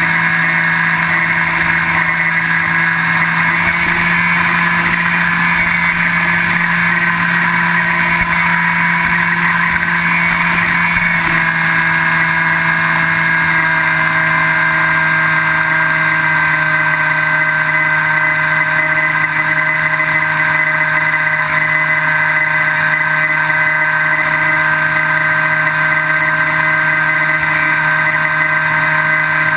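Electric brushless motor and propeller of a Skywalker 1680 FPV plane in flight, heard from the camera on board: a steady, loud motor whine over wind noise, its pitch dropping slightly about eleven seconds in.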